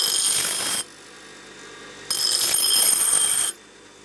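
Bench grinder's coarse wheel grinding a forged car-spring steel blade, rough-grinding off the hammer marks. There are two high-pitched ringing grinding passes, one just under a second long at the start and one of about a second and a half starting about two seconds in. The grinder runs more quietly between them.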